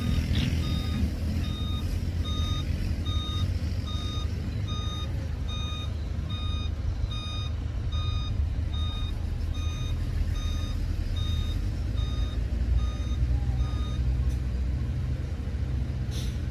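Heavy construction machine's reversing alarm beeping steadily, a little faster than once a second, over the low rumble of its engine; the beeping stops about 14 seconds in while the engine keeps running.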